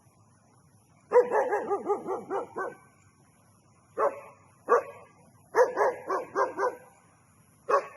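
A dog barking excitedly in quick runs: a burst of about eight barks, two single barks, then another run of about five and one more near the end.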